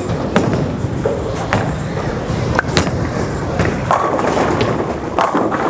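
Urethane bowling ball (900 Global Zen U) rolling down the lane with a steady low rumble, with scattered clicks and knocks of a bowling alley around it.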